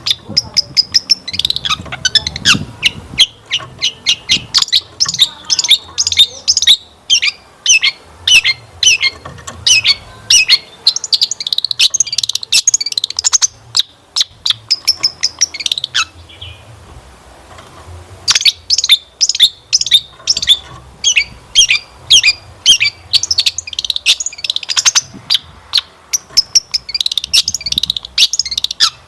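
Long-tailed shrike (cendet) singing a fast run of sharp chattering notes mixed with mimicked phrases. The song breaks off for about two seconds a little past the middle, then starts again.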